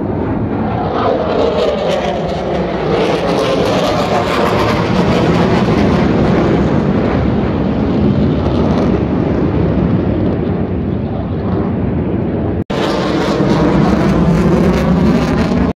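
Military fighter jet flying overhead: a loud, steady jet roar that builds over the first few seconds, with a sweeping, phasing tone as it passes. The sound cuts out for an instant near the end, then returns at full strength.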